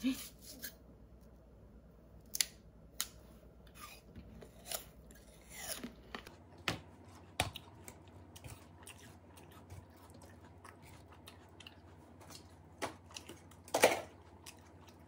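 Knife peeling an apple by hand: a scatter of short, crisp cutting clicks at an uneven pace, the loudest few near the end.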